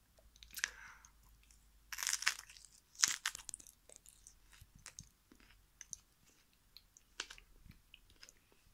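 A person biting into an unpeeled banana and chewing it, peel and all: a few louder crunchy bites in the first three seconds or so, then softer, irregular chewing clicks.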